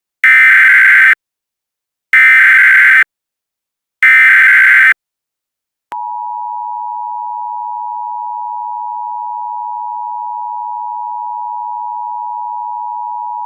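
Emergency Alert System tones: three short bursts of SAME digital header data about a second each, then the two-tone attention signal, a steady dual-pitch tone from about six seconds in. It signals that an emergency alert message is about to be broadcast.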